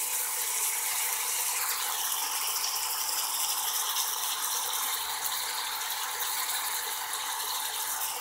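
Ground beef with onions and mushrooms sizzling in hot oil as it browns in a pan: a steady crackling hiss of many tiny pops, with a faint steady tone underneath.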